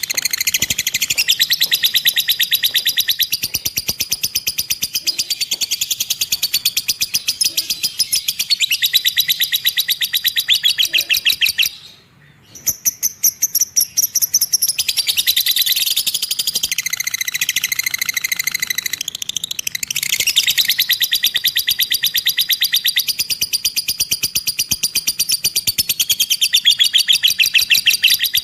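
Lovebird ngekek: a long, very rapid, high-pitched chattering trill held for many seconds at a time, with a short break about twelve seconds in.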